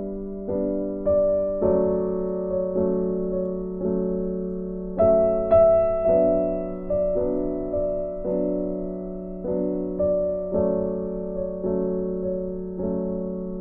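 Background piano music: slow, gentle chords, each note struck and then fading.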